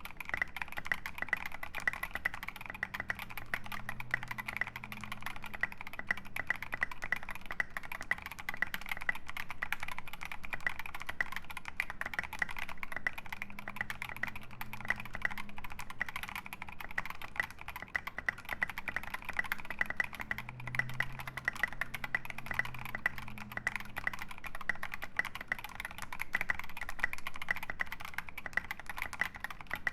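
Steady, fast typing on a UTD 356 mini mechanical keyboard with stock, unlubed Boba U4T 62g tactile switches, aluminium plate and SA dualshot keycaps: a dense, continuous run of key clacks.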